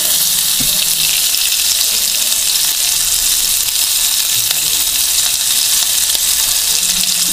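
Chicken and vegetable shashlik skewers sizzling in hot oil in a non-stick frying pan, a steady hiss, as they are shallow-fried until golden.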